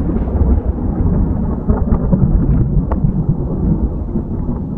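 A deep, continuous thunder-like rumble with scattered crackles, used as a sound effect in the radio play.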